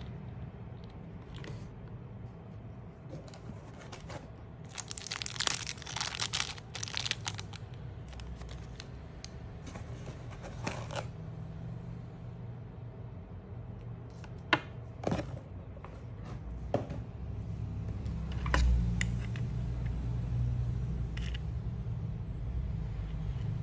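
Hands handling small unboxed parts and plastic packaging: crinkling and rustling about five to seven seconds in, with scattered clicks and knocks over a steady low hum.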